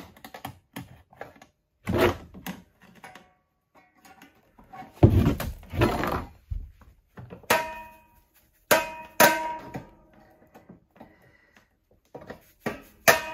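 A series of sharp metallic clinks and knocks from pliers and hooked wires working the steel exhaust springs off a Ski-Doo Expedition Sport's muffler. Several of the strikes ring on briefly.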